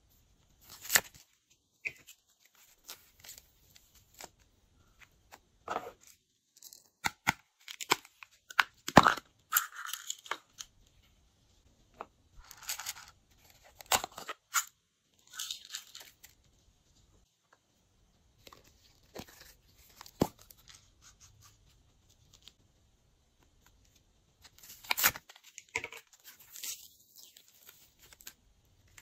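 A foil-backed plastic packet of sequins being crinkled and torn open by hand, with scattered sharp clicks and taps from small containers being handled, in short bursts with quiet gaps between.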